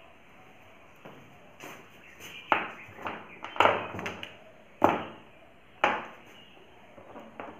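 A series of sharp knocks, each with a short ringing tail, starting about two and a half seconds in; the four loudest come roughly a second apart, with fainter knocks between them.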